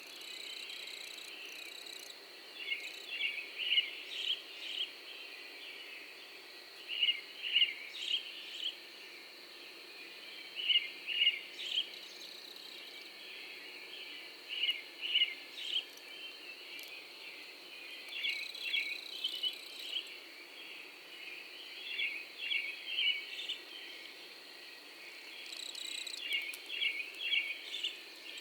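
Morning nature ambience: a bird repeating short phrases of three to five chirps every few seconds over a steady, high insect drone, like crickets.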